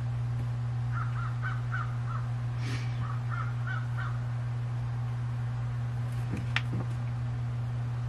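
A crow cawing in two quick series of short caws, one about a second in and another about three seconds in, over a steady low hum; a single sharp click about six and a half seconds in.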